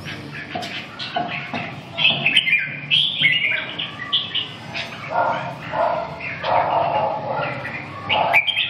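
Caged red-whiskered bulbuls singing, with a run of short, bright chirping phrases one after another. Rougher, lower sounds join in from about halfway through.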